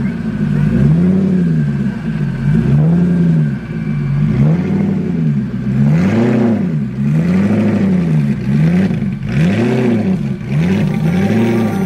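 A car engine revved over and over, its pitch rising and falling about once a second.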